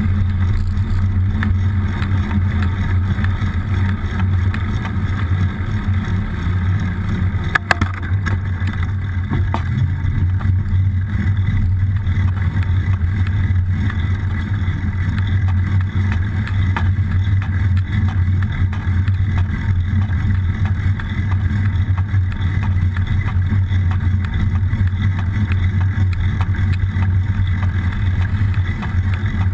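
Steady muffled rumble of wind and tyre noise from a moving bicycle, picked up by a camera mounted low on the frame, with a short rattle about eight seconds in.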